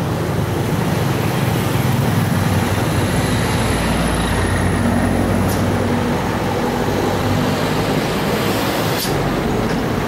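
Steady roadside traffic noise: the engines of passing motorcycles and heavy vehicles, with a low engine hum strongest in the middle. Two brief sharp clicks come about halfway through and near the end.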